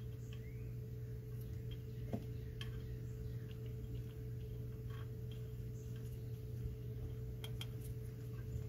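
Scattered faint metallic ticks and clicks as a bolt held on an extendable magnet is worked down into the thermostat-housing bolt hole, over a steady low background hum.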